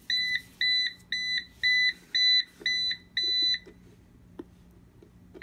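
Jetson Rave Extreme Terrain hoverboard beeping just after being switched on: a high electronic beep repeating about twice a second, seven beeps, stopping about three and a half seconds in, with a new beep starting right at the end.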